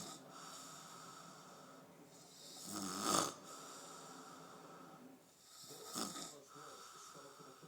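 Loud snoring, with a snore about every three seconds and quieter breathing sounds between.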